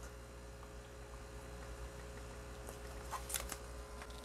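Faint steady electrical hum, with a few light clicks about three seconds in.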